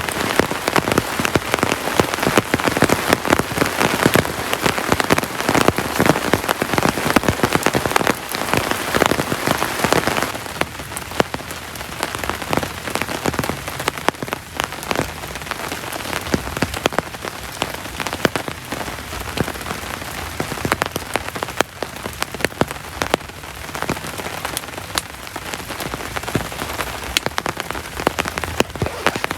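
Heavy rain falling, a dense patter of many individual drops striking a surface. It is heavier for about the first ten seconds, then eases a little and keeps up steadily.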